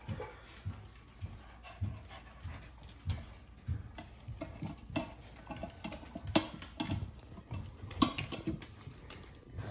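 Dogs eating from stainless-steel bowls: irregular crunches and clicks, several a second.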